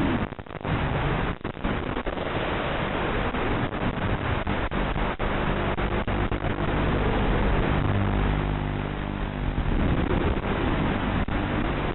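Racing quadcopter in flight heard through its analog FPV video link: a steady hissing rush with a low hum that shifts in pitch as the motors change speed, cut by brief signal dropouts about half a second and a second and a half in, and a few short clicks.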